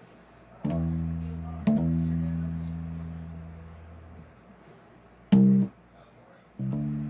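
Bass guitar played solo with single plucked notes, each starting sharply and left to ring and fade. Two come about a second apart, a short, cut-off note follows about five seconds in, and another rings near the end.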